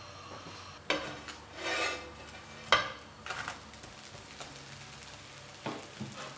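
A slice of bread frying in butter in a non-stick pan, with a faint sizzle. Kitchen tongs click against the pan several times, sharpest about three seconds in, and there is a short scraping swell as the toasted slice is handled.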